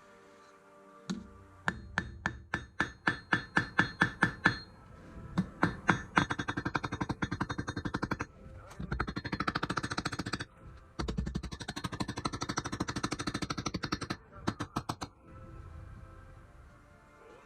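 Rapid hammer blows on a rivet fastening a leather strap to a steel breastplate, with a metallic ring. A run of about four strikes a second grows louder, then comes faster, denser hammering in several runs with short pauses between them.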